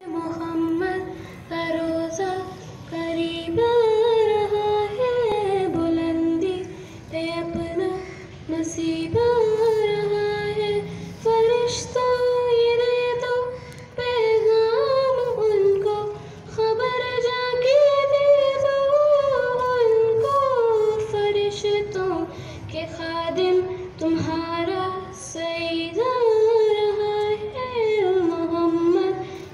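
A girl singing an Urdu naat unaccompanied, in a high voice. She holds long notes that glide and bend between pitches, in phrases of a few seconds separated by short breaths.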